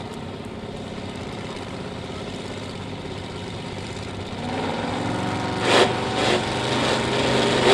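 Supercharged Chrysler V8 in a competition Willys coupe running at a steady idle, then revving up from about four and a half seconds in, with two sharp pops near six seconds.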